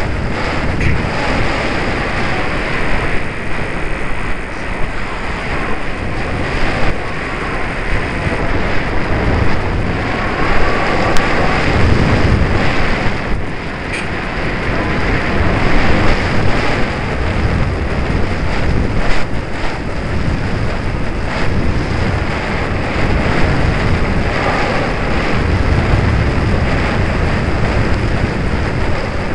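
Airflow rushing over the microphone of a camera mounted on a model airplane in flight: a loud, continuous rush with uneven low buffeting that swells and dips.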